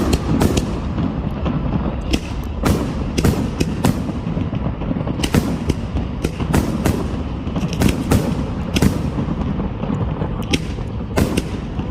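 Fireworks going off: an irregular string of sharp bangs, roughly two a second, over a steady low rumble.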